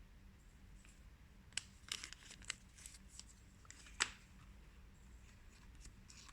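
Small phone accessories and their packaging being handled: light rustling and small clicks in a cluster, the loudest a sharp click about four seconds in.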